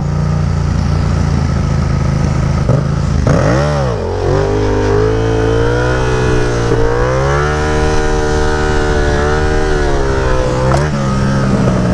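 Yamaha FZ-07's 689 cc parallel-twin engine revved for a wheelie. The revs swoop down and back up about three and a half seconds in, then climb and are held high while the front wheel is up, dropping off shortly before the end.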